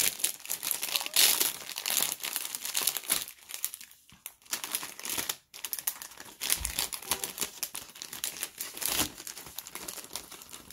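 Foil packaging of a Pokémon first partner pack and its booster packs crinkling as it is handled and opened and the boosters are pulled out. Dense, irregular crackling with a brief lull about four to five seconds in.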